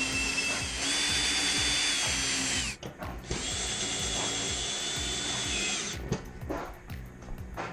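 Cordless drill running in spells of two to three seconds with short pauses between as it drives screws into an aluminum deck panel; the whine stops about six seconds in, followed by a few knocks.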